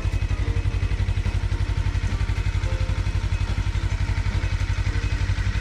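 Motorcycle engine idling with a fast, even low throb.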